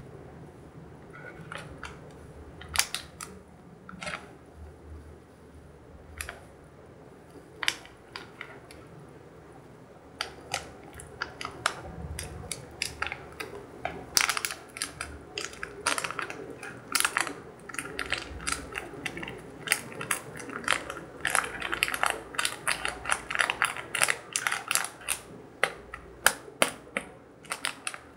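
Small plastic packet of DIY-candy powder crinkling and being tapped and pinched as the powder is shaken out into a plastic tray: irregular crackles and clicks, scattered at first, then quicker and denser from about a third of the way in.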